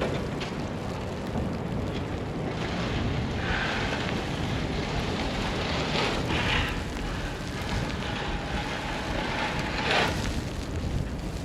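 City street ambience in a snowstorm: a steady rushing hiss of wind, slush and distant traffic, with a few short louder scrapes or swishes.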